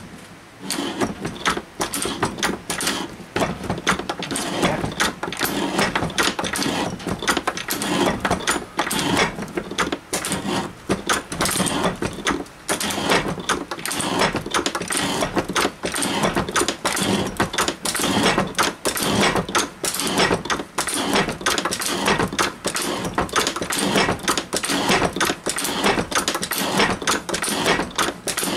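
Antique metal shaper running, its ram stroking back and forth in a steady, rhythmic clatter as the tool takes a fine cut along a steel plate.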